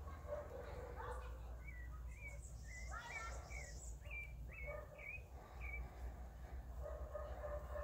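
A bird calling in the surrounding trees: a run of about ten short, high chirps, each a quick up-and-down note, starting about two seconds in and stopping near six seconds, over a steady low rumble.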